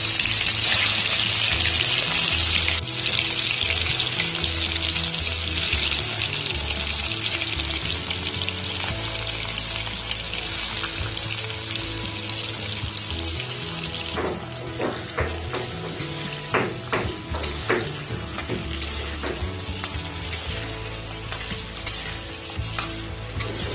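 Hollowed bitter gourds deep-frying in hot oil in a kadai, sizzling loudly just after going in, then gradually easing. About two-thirds of the way through, a spatula starts scraping and knocking against the pan as the gourds are turned.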